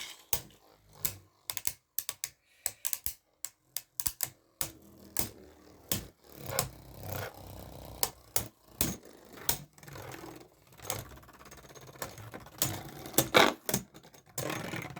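Beyblade Burst spinning tops clashing in a plastic stadium: a run of sharp plastic clicks and clacks, then from about four seconds in a steady whir of the spinning tops broken by repeated hard hits.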